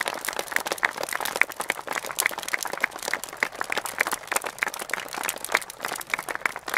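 Wood fire in a beacon brazier crackling, with a dense, irregular run of sharp pops and snaps.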